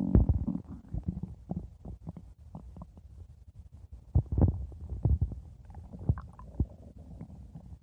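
Stomach growling: an irregular string of low gurgles and pops, loudest near the start and again about four to five seconds in.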